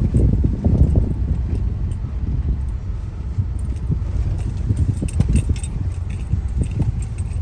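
Car cabin on a bumpy, potholed dirt road: a steady low rumble from the tyres and suspension, with light rattling and jingling clicks from loose items shaken by the bumps.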